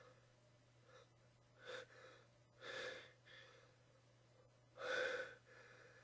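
A person's gasping in-breaths, the build-up to a sneeze: a short one a little under two seconds in, a longer one near three seconds in, and the loudest about five seconds in.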